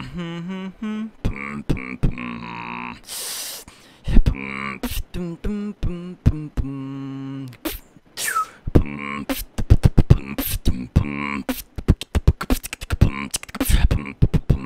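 A man's vocal beatbox into a microphone: sharp mouth-made kick and snare clicks mixed with hummed bass tones, a long hiss about three seconds in and a falling swoop, building to a fast run of clicks near the end.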